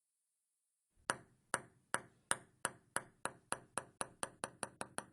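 A ball bouncing on a hard surface: sharp ringing clicks that start about a second in and come faster and fainter as the bounces die away.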